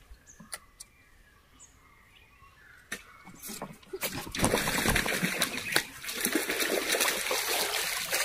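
Water splashing and trickling close by, loud and crackly, starting about four seconds in after a few faint ticks.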